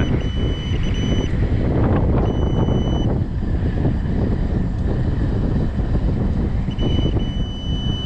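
A Fluke 902 FC clamp meter's continuity beeper sounds as its leads touch a compressor terminal and ground. It gives a steady high beep that comes and goes in four stretches, the last held more than a second. The beep means a compressor winding is shorted to ground, which is why the breaker trips. A steady low rumble runs underneath.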